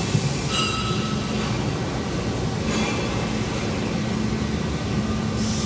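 Steady mechanical rumble and hiss with a low hum, like machinery or a vehicle running, with faint brief higher whines about half a second in and near three seconds in.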